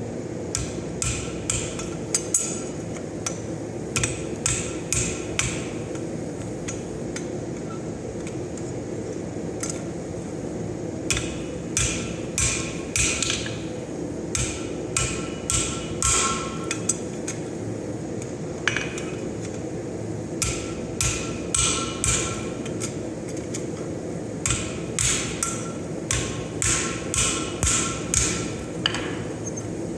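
Hammer blows on hot steel at the anvil while forging a leaf blank. The blows come in runs of about two or three a second, with short pauses between runs, over a steady low background hum.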